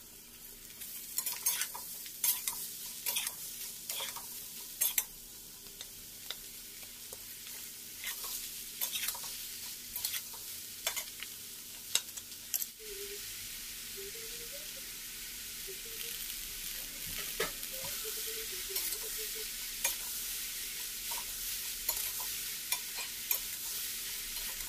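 Chopped bottle gourd sizzling in hot oil in a metal kadhai, a steady frying hiss that gets a little louder about halfway through. A steel spatula scrapes and clicks against the pan about once a second as the vegetable is stirred.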